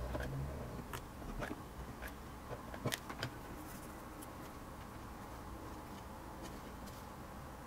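A few light clicks and taps over faint steady room noise, about four in the first three and a half seconds, with the rest quiet apart from the background.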